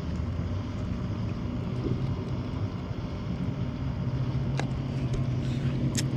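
A steady low mechanical hum, like a motor running, holding one pitch over a low rumble, with a few short clicks near the end.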